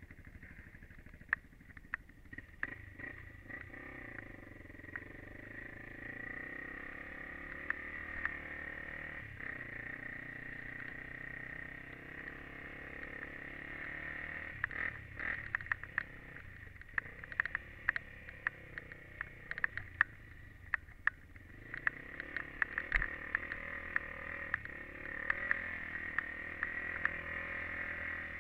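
Honda TRX400EX sport quad's single-cylinder four-stroke engine running under way through snow, its pitch rising and falling with the throttle, heard through a helmet-mounted camera. Many sharp clicks and knocks come through it, thickest in the second half.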